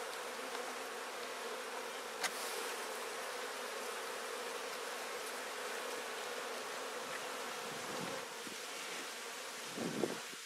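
Honeybee colony buzzing in a steady, even hum from bees clustered on their cut-out comb, with a single click about two seconds in.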